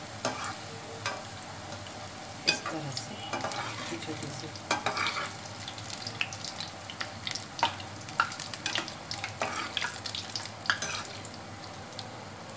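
Hot oil sizzling steadily around small batter fritters (phulkis for dahi bare) as they deep-fry, with many sharp spattering pops.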